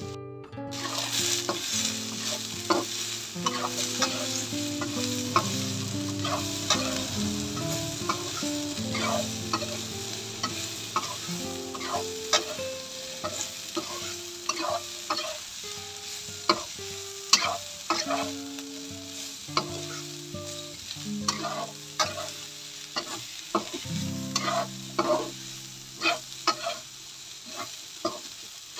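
Green beans and chicken sizzling in a hot pan while a black spatula stirs and tosses them, with many short scrapes and clacks of the spatula against the pan.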